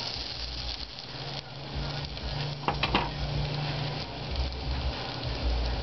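Naan frying in butter in a nonstick frying pan: a steady sizzling hiss, with two light clicks about three seconds in.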